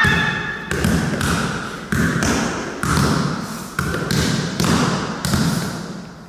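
Hands smacking plastic game buttons in quick succession, a sharp hit roughly every half to three-quarters of a second, each fading away before the next, as two players race to hit their colour.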